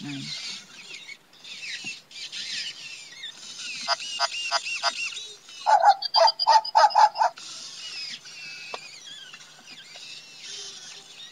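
WowWee Robopet robot dog playing its electronic dog sounds during a trick: high warbling chirps and glides, then a run of quick, loud synthetic barks about six seconds in.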